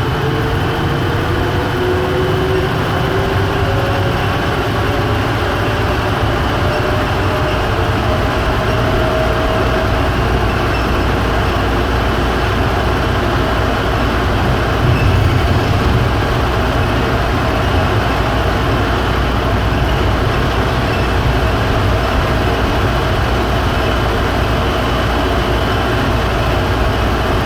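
Automated airport people-mover train running along its guideway, heard from inside the car: a steady rumble and hiss, with a faint motor whine rising in pitch over the first ten seconds or so as the train gathers speed.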